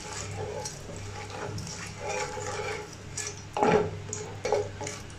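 Wooden spatula stirring and scraping across a metal pan of hot oil with whole spices, in irregular scrapes with one louder knock a little past halfway.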